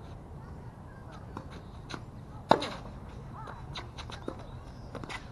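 Tennis rally on a hard court: one sharp racket-on-ball hit about two and a half seconds in, the loudest sound, with fainter ball bounces, hits and shoe scuffs before and after it.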